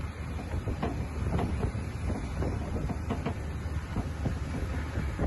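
Longtail boat under way on choppy water: a steady low engine rumble with frequent irregular knocks and thuds from the hull.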